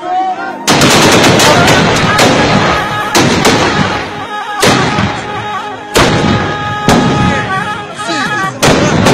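Black-powder long rifles fired in a ragged volley. Several loud shots come in a quick cluster about a second in, then single shots follow roughly every second, each with a long echoing tail.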